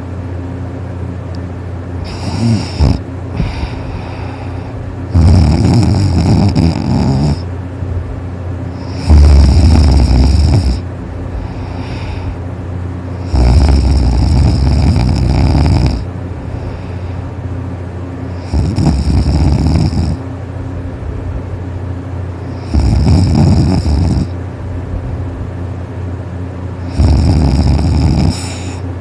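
A person snoring in sleep: six loud snores, one every four to five seconds, each lasting one to two and a half seconds, over a steady low hum.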